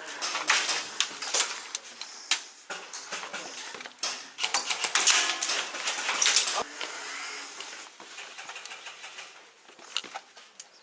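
Sharp clacks of airsoft gas blowback shots, some in quick strings, with rustling between them, thinning out over the last few seconds.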